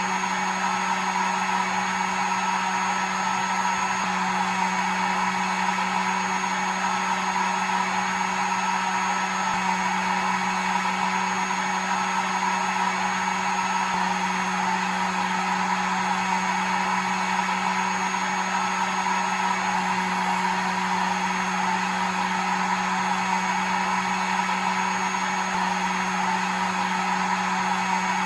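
Hair dryer running steadily: a continuous airy rush of blown air over a low, constant motor hum.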